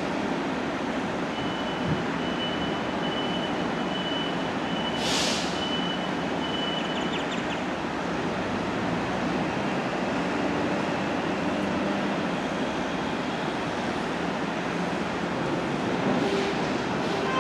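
KTM electric multiple unit pulling slowly into the platform: steady running noise, with a thin high squeal from about one to six seconds in and a short hiss of air about five seconds in. The horn starts to sound right at the end.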